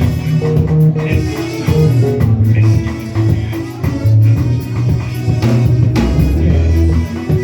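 Church worship band playing: bass guitar and guitar over a drum kit, with a steady run of changing bass notes.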